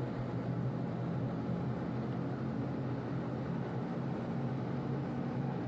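Steady machinery hum with a low drone, even in level throughout: running machine equipment in a machine shop.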